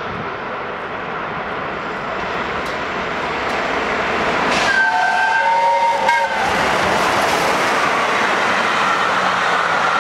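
LNER Peppercorn A1 steam locomotive 60163 Tornado running through at speed, its noise growing louder as it approaches. About halfway in, its whistle sounds for about a second and a half, several notes at once, dropping in pitch as the engine passes. The rush of the passing carriages follows.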